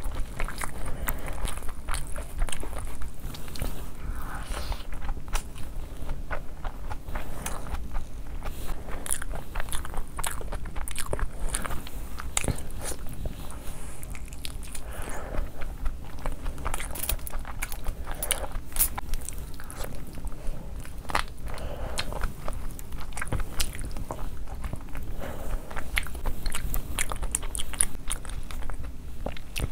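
Close-miked biting and chewing of spicy gravy-coated chicken lollipops, with frequent short clicks and crunches.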